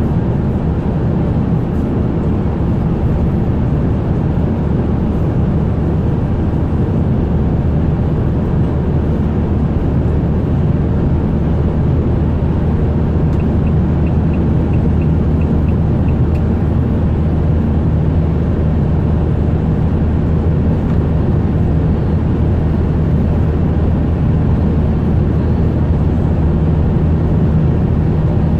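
Ambulance driving on a multi-lane road, heard from inside the cab: steady engine and tyre noise with a deep, even hum. A faint ticking, about three a second, comes and goes a little past the middle.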